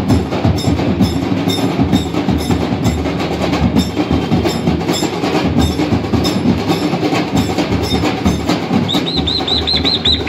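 Music driven by percussion with a fast, steady drum beat. A run of quick high chirps comes in near the end.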